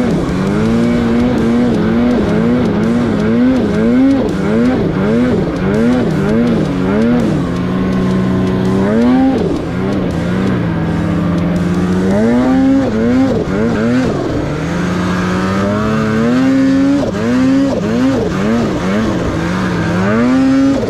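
Two-stroke mountain snowmobile engine revving under load in deep powder, its pitch going up and down in quick throttle pulses, nearly two a second, for the first seven seconds. After that it holds steady and rises in longer pulls, near ten, thirteen, seventeen and twenty-one seconds in.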